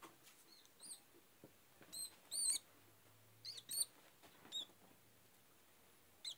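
A live white feeder rodent squeaking while held in a ball python's constricting coils: a series of short, high-pitched squeaks in clusters, loudest about two and a half seconds in and again near four seconds.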